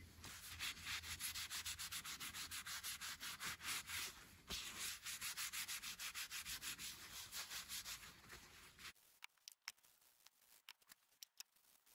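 A cloth rubbed quickly back and forth over the face of a spray-painted, laser-etched ceramic tile, wiping it clean. Several strokes a second, with a short break about four seconds in, stopping about nine seconds in; a few faint clicks follow.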